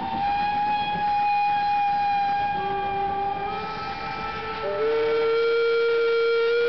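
Steam locomotive whistles blowing long, overlapping held notes. A higher whistle sounds first, a lower one joins about two and a half seconds in, and the lower one is loudest from about five seconds in.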